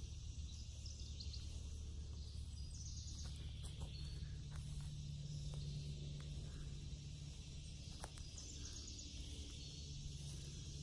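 Summer woodland ambience: a steady high insect drone, with short bursts of quick bird chirps about three seconds in and again about eight seconds in, over a low steady hum.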